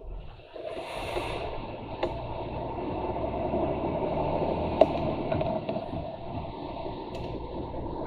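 Lorry cab noise while driving: steady engine drone and road noise heard inside the cab, with a single sharp click near the middle.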